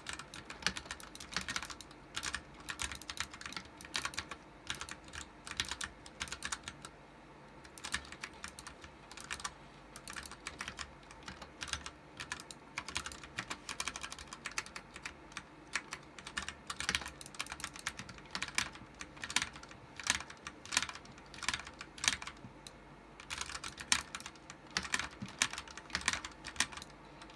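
Typing on a Ducky One 2 Mini mechanical keyboard with Cherry MX Brown switches: fast runs of key presses, each a sharp clack, with a couple of short pauses.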